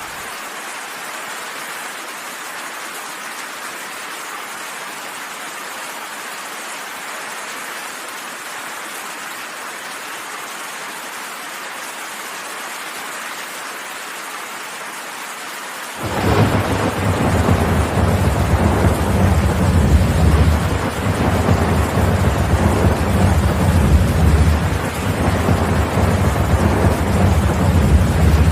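Steady heavy rain, then about halfway through a loud low thunder rumble comes in abruptly and rolls on, swelling and easing, over the rain.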